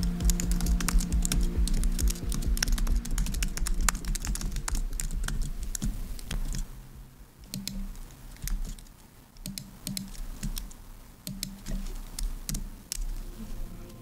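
Typing on a low-profile computer keyboard: a fast, dense run of keystrokes, then slower, scattered keystrokes after about six and a half seconds.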